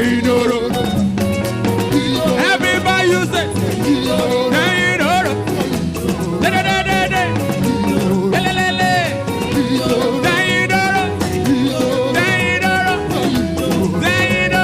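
Live praise band playing an upbeat song with guitar and drums, voices singing short phrases over it about every two seconds.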